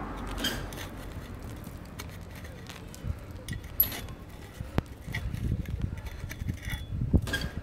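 Low steady outdoor rumble with scattered light clicks and knocks.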